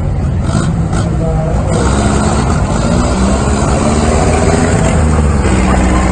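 Traditional hot rod engine running loudly as the car pulls away from a start line on sand.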